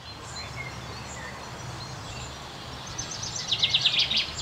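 Outdoor ambience with a steady low hum and scattered bird chirps. About three seconds in, a fast run of sharp high chirps, the loudest sound, lasts about a second.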